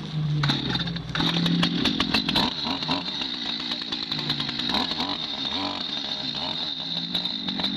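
Two-stroke chainsaw running without cutting, its engine speed rising and falling a few times. It is being test-run just after its chain was refitted and tensioned.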